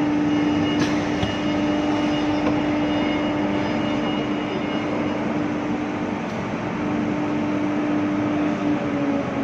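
CNC router cutting MDF: a steady spindle whine over an even roar of cutting noise, its pitch dipping slightly near the end.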